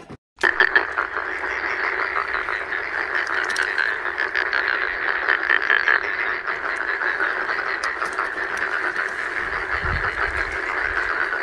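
A dense chorus of frogs croaking, many rapid calls overlapping in a steady din.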